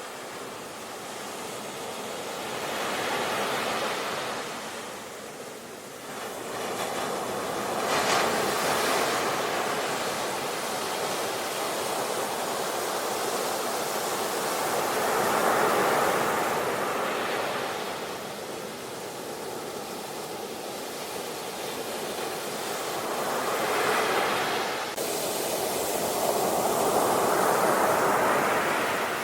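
Ocean waves crashing on a shore: a continuous rushing surf that swells and subsides as successive waves break, about five surges.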